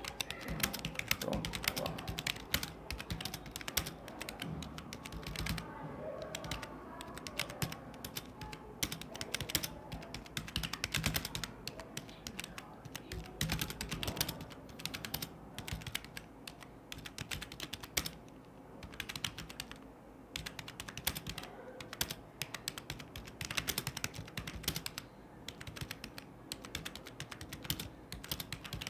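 Fast typing on a computer keyboard: a steady stream of key clicks, with a short pause about eighteen seconds in.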